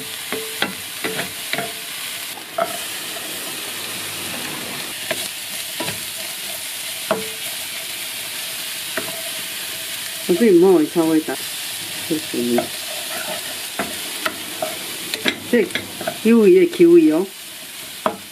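Dried shrimp and other fillings frying in oil in a frying pan, sizzling steadily while a wooden spatula stirs and scrapes them against the pan with frequent short strokes. A few brief pitched sounds break in about ten seconds in and again near the end.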